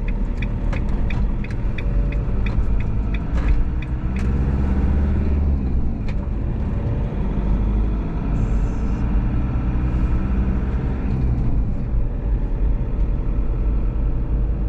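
Motorhome engine and road rumble while driving, with the engine's pitch rising and falling twice. For the first few seconds a rapid, regular ticking, about four a second, runs over the engine.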